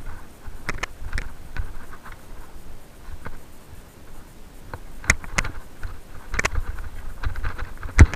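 Mountain bike rattling over a rocky trail: tyres rolling on stones and the bike clacking and knocking as it hits rocks, over a low rumble, with the loudest knock near the end.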